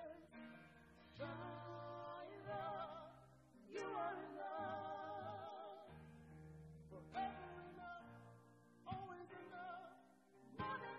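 Worship band performing: a woman and a man singing long, wavering notes over a Roland stage piano and electric bass guitar.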